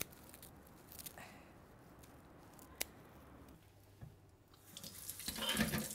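A few sharp snips of scissors cutting parsley stems, spaced well apart, one standing out about three seconds in.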